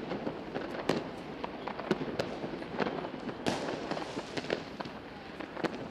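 New Year's Eve fireworks and firecrackers going off: many sharp bangs at irregular intervals over a steady wash of more distant bangs, with a hiss about halfway through.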